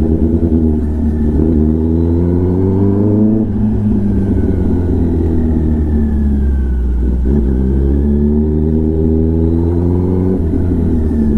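Kawasaki Ninja ZX-10R inline-four with an SC-Project exhaust pulling under throttle while being ridden: the engine note climbs steadily and then drops suddenly, twice, about three seconds in and again near the end.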